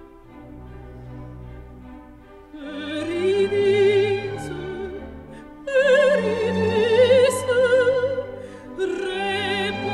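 Background music: an operatic soprano singing with strong vibrato over an orchestra. After a soft orchestral opening, her phrases come in about a quarter of the way in, again a little past halfway, and once more near the end.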